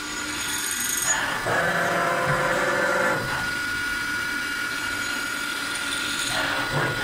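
CNC machining center running a hole-drilling program: a steady high spindle whine, with louder spells of machining noise from about a second to three seconds in and again near the end.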